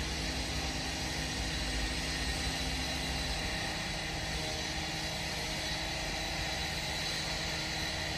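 Steady background rumble and hiss of a railway station in a town, with a faint steady hum that stops about three and a half seconds in.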